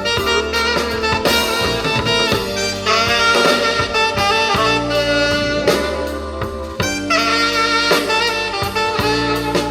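Blues-jazz band instrumental break: a saxophone plays the lead line over drum kit and bass.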